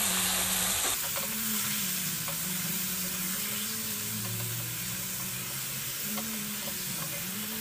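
Raw minced mutton sizzling in hot oil with fried onions in an aluminium pressure cooker while a plastic spatula stirs and scrapes it around the pan, browning the keema. The sizzle eases slightly about a second in.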